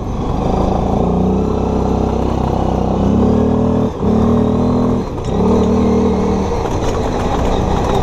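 Chinese ATV's engine running under throttle as it is ridden, holding a fairly steady pitch, with two brief drops in level about four and five seconds in.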